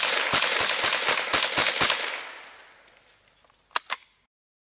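A rapid series of sharp bangs, about four a second, over a hissing wash that fades away about two seconds in. Two sharp clicks follow near the end, then dead silence.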